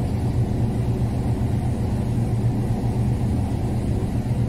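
Ship's engine running steadily, a constant low drone.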